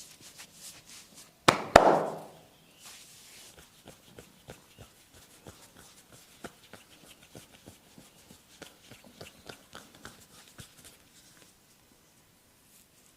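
Two hard hand slaps on skin during a back massage, about a third of a second apart, each with a short ringing tail. They are followed by a long run of light taps and small skin clicks that die away about eleven seconds in.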